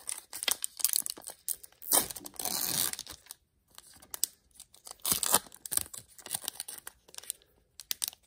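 Foil wrapper of a trading-card booster pack being torn open and crinkled by hand, in irregular crackling bursts with a longer, louder rip about two seconds in.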